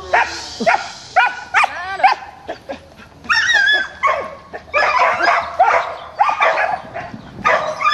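A dog barking over and over in short, high barks, two or three a second, with a brief pause about a third of the way through.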